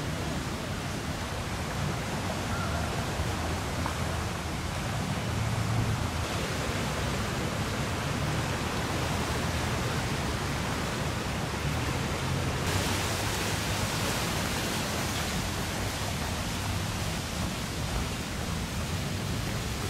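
Steady rush of flowing floodwater, an even hiss over a low rumble. It turns brighter and hissier abruptly about two-thirds of the way through.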